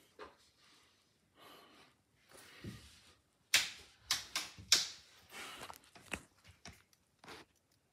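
Clicks, knocks and rustles of hands working a caged work light while its bulb is changed. The loudest run of knocks comes about halfway through, followed by a few sharp single clicks.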